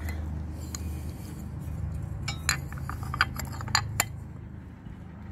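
Irregular light metallic clinks and taps, a cluster of them about two to four seconds in, from a socket and extension working the bolt as the front anode of a Bravo 3 outdrive is tightened down. A steady low hum runs underneath.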